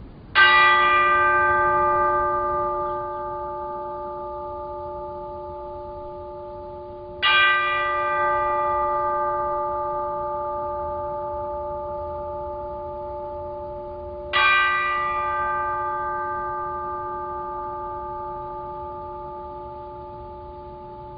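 A bell struck three times, about seven seconds apart, each stroke ringing on and slowly fading before the next; a bell tolled to mark a moment of silence.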